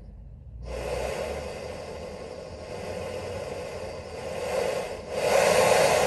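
Portable backpacking stove burner running on propane from a small cylinder through an adapter hose, its lit flame hissing steadily. The hiss gets louder under a second in and again about five seconds in as the gas is turned up, and it drops away right at the end.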